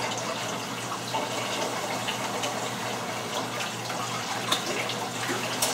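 Kitchen tap running into a sink as the detached immersion blender blade is rinsed under it, a steady splash of water with a few small knocks.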